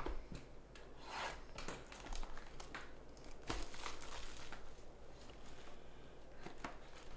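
Crinkling and rustling of trading-card packaging (plastic sleeves and foil wrapping) being handled and opened, in short irregular rustles.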